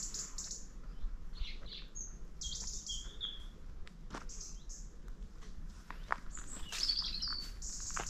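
Small woodland birds chirping and singing in repeated short, high trills and whistles, with soft footsteps on a path underneath.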